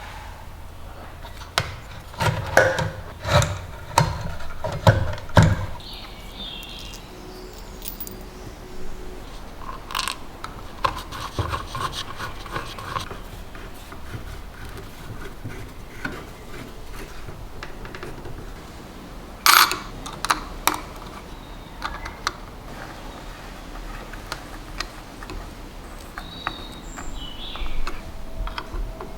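Hand work on small hard parts: a quick run of knocks and clicks in the first few seconds, then intermittent rubbing and scraping, with another sharp knock about twenty seconds in.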